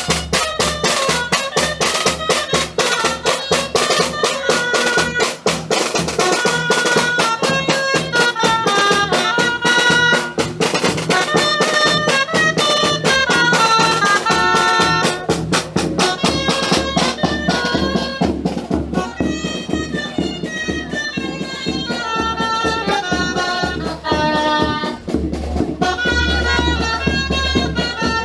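Dulzaina (Castilian shawm) playing a traditional dance tune over a fast drum beat; the drumming thins out about two-thirds of the way through, leaving the reedy melody mostly alone.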